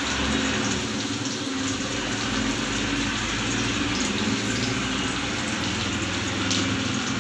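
Sliced onions sizzling in hot oil in a kadhai, a steady frying hiss, with a low hum underneath.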